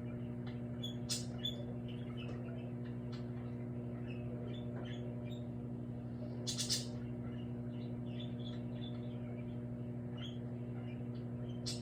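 Microwave oven running with a steady electrical hum, with scattered small ticks over it and two short hissy crackles, one about a second in and one about halfway through.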